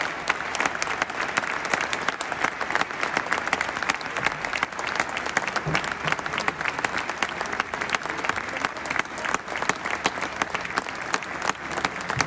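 Football stadium crowd applauding steadily, dense continuous clapping from the stands.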